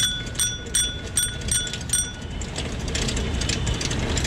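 Bicycle bell on a rental bike rung repeatedly, about six bright metallic rings in two seconds, then the light rattle of the bike rolling along the path over steady wind and road rumble.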